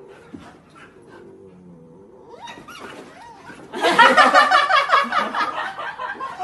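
Husky puppy yowling while being pinned on its back in rough play: a few rising whines about halfway through, then a loud, wavering, drawn-out howl-like cry for about two seconds near the end.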